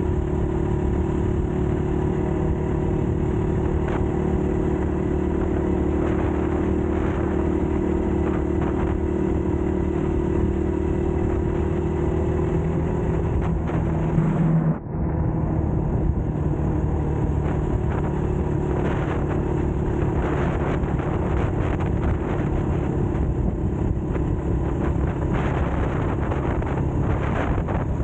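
Rusi KRY 200cc dirt bike engine running steadily while riding. About halfway through it dips sharply for a moment, then carries on at a lower pitch.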